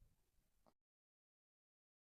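Near silence: faint room tone that cuts off to dead silence under a second in.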